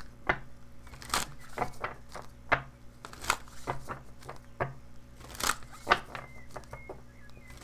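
Deck of oracle cards being shuffled by hand: a quick, irregular run of crisp card slaps and swishes.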